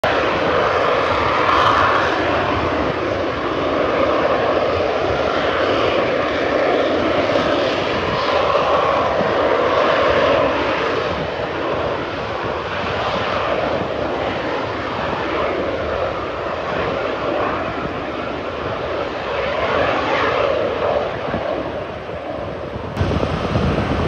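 The turbojet engines of a formation of Snowbirds CT-114 Tutor jets at takeoff power during their takeoff run. The steady jet noise swells and eases, growing louder with more low rumble in the last second.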